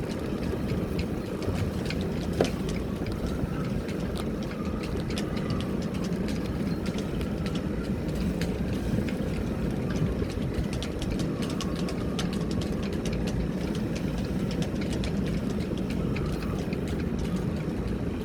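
Boat engine idling steadily, with scattered light ticks and clicks over it.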